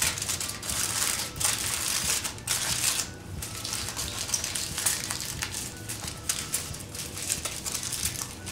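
Aluminium foil crinkling and crackling in irregular bursts as it is folded and pressed by hand around a square of cake.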